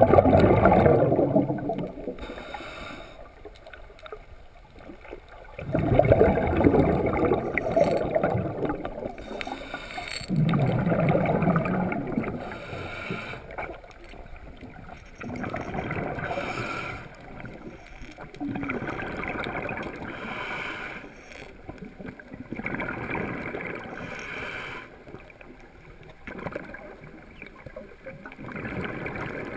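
Underwater scuba breathing: a diver's exhaled bubbles from the regulator come in bursts every few seconds, with fainter, higher inhalation hiss between them.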